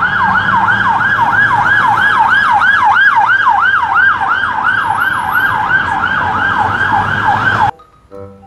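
British police van's siren sounding a rapid yelp, its pitch sweeping up and down about three or four times a second. It cuts off suddenly near the end.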